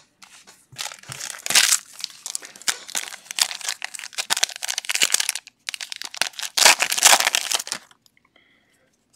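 Foil wrapper of a trading-card pack crinkling as it is handled and opened by hand: a run of crackling rustles, loudest about a second and a half in and again near seven seconds, stopping near the end.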